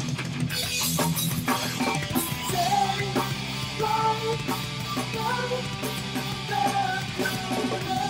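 Rock music with guitars and a drum kit keeping a steady beat, and a lead melody line coming in a couple of seconds in.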